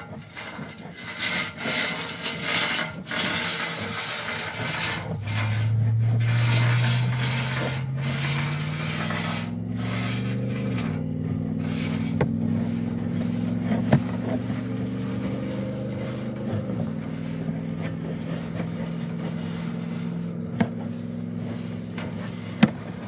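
Scraping and rubbing as a pipe-inspection camera's push cable is fed down the pipe, with a steady motor hum coming in about five seconds in, rising slowly in pitch and then holding. A few sharp clicks near the end.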